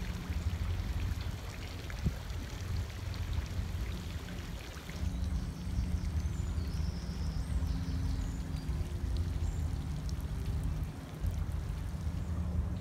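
Outdoor ambience of splashing, pouring water over a steady low rumble, with a few short high bird chirps around six to eight seconds in.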